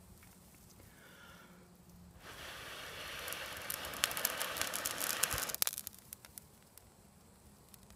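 A tinder nest holding a char-cloth ember being blown into flame: one long hissing breath of about three seconds, full of sharp crackles, that cuts off suddenly, followed by faint crackling.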